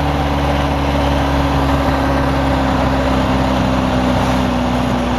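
1928 Bugatti Type 13's four-cylinder engine running as the car drives along, its note steady and easing slightly lower midway, under a steady hiss of wind and rain.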